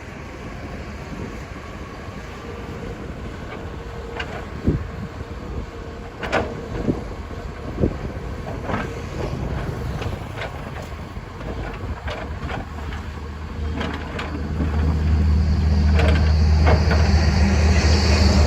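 Hydraulic excavator's diesel engine running, with scattered metallic clanks and knocks from the working machine. About two thirds of the way in the engine's drone grows much louder and holds, as it comes under load.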